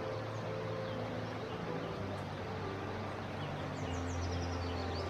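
Shallow forest stream running over rocks with a steady rush, with a few short high bird chirps.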